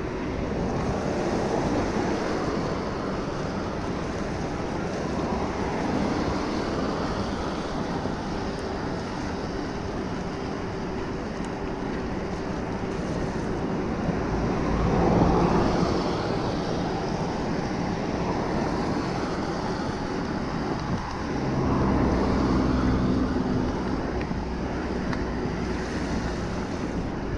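Wind rushing over the microphone of a bicycle ride along a wet road, with road traffic going by. The noise swells twice, about halfway through and again about three-quarters through, as motor vehicles pass.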